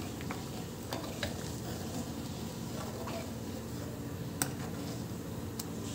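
A ladle stirring boiling dal in an aluminium kadhai: a steady low bubbling and stirring sound with a few light clicks of metal on the pan, the sharpest about four seconds in.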